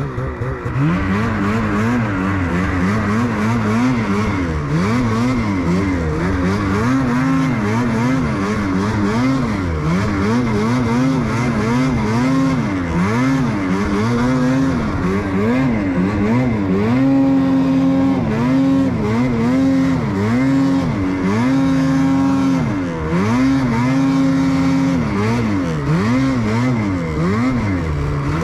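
Ski-Doo snowmobile engine revving up and down over and over as the throttle is worked, then held at a steady high pitch for several seconds at a time in the second half, with a brief dip between.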